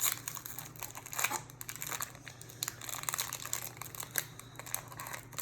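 Plastic wrapping on a trading card box and its packs crinkling and tearing as it is handled and opened, in irregular crackles.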